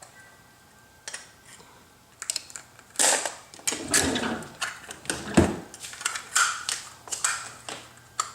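Irregular clicks, knocks and rustling, as of small objects being handled, starting about two seconds in and busiest from about three seconds on.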